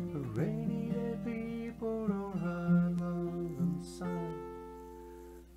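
Acoustic guitar playing a slow instrumental passage of the song's closing section. The notes ring out, and the last chord fades away near the end.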